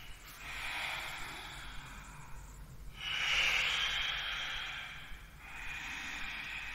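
Slow, deep breathing during a yoga sun salutation: three long, audible breaths, the middle one the loudest.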